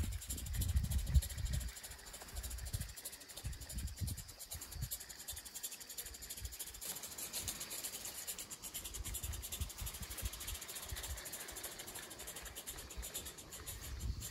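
Small live-steam garden-railway locomotive with oscillating cylinders running under load, giving a fast, soft chuffing hiss of exhaust steam as it hauls a train of wagons. A low rumble sounds during the first couple of seconds.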